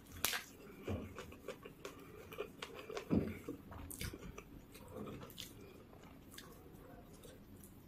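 A person chewing close to the microphone, with irregular crunches and wet mouth clicks: a crisp bite into a raw green chilli near the start, then the sounds thin out and grow quieter in the last few seconds.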